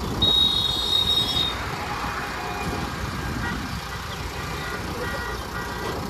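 JCB 3DX backhoe loader's diesel engine running with a low rumble while it works. A high-pitched vehicle horn sounds once for about a second just after the start.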